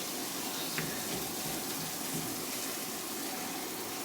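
Ground beef sizzling steadily in a frying pan.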